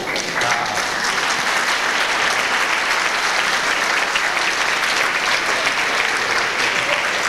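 A room full of people applauding, building up over the first second and then holding steady.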